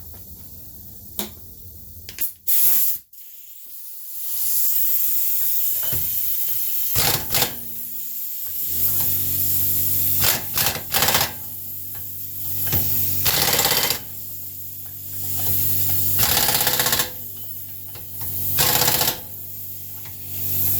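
Impact wrench fired in repeated bursts of about a second each, driving in the bolts of a new rear hub assembly, with a hiss from about four seconds in and a steady low machine hum starting about eight seconds in.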